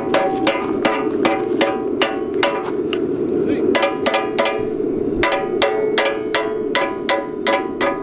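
Hand hammer striking a hot steel rod to bend it around the pin of a blacksmith's bending jig held in a bench vise: sharp, ringing metal blows at about three a second, pausing briefly about three seconds in, then resuming. A steady rushing noise runs underneath.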